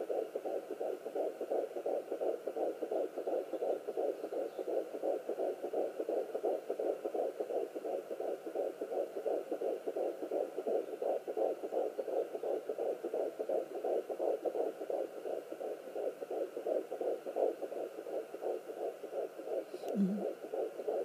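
Fetal heartbeat at 11 weeks of pregnancy picked up by a Sonoline B handheld fetal Doppler and played through its speaker: a rapid, even, steady pulse.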